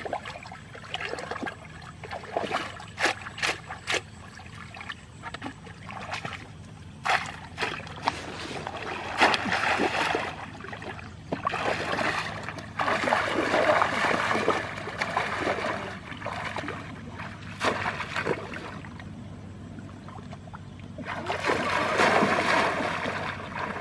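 Shallow muddy water splashing and sloshing as people wade and grope in it by hand. Scattered sharp splashes give way to longer rushes of sloshing, the loudest near the end.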